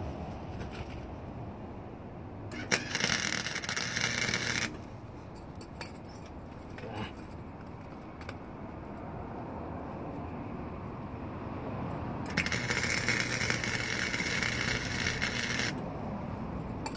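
Two bursts of a Harbor Freight Chicago Electric 125-amp flux-core wire welder's arc crackling, about two and three seconds long, as it welds thin aluminized exhaust tubing on its minimum setting.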